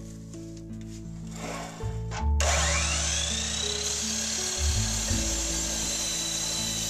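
Miter saw motor switching on about two seconds in, its whine rising in pitch as the blade spins up and then running steadily, over background music.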